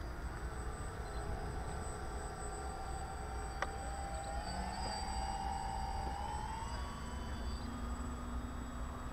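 Motors of a radio-controlled scale model Short S.23 Empire flying boat whining on the water, their pitch rising from about four and a half to seven seconds in as the throttle opens for the take-off run. A single sharp click about three and a half seconds in, over a low rumble.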